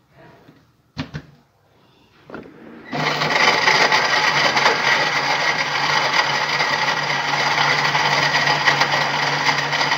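A few sharp plastic knocks as the lid is pressed onto the blender jar, then about three seconds in the electric blender is switched on and runs steadily at full speed, blending milk.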